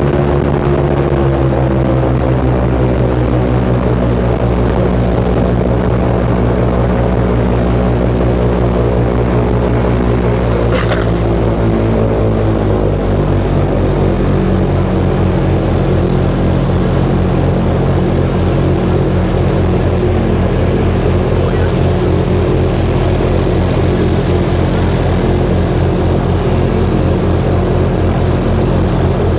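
Airboat's engine and open air propeller running hard as the boat skims across the water. The pitch sinks slowly, then steps down a little under halfway through and settles into a lower, evenly pulsing drone.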